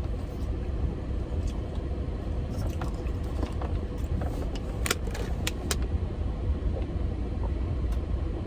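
Steady low rumble of a car engine running, with a faint steady hum and a few sharp clicks, the loudest about five seconds in.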